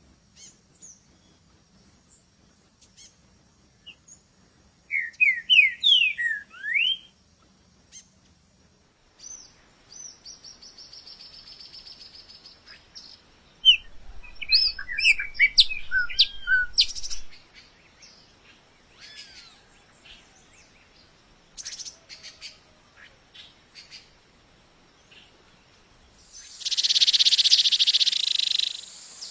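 Wild birds calling and singing with gaps between: quick sweeping chirps, short whistled notes and a rapid trill. Near the end a loud, hissing buzz lasts about three seconds.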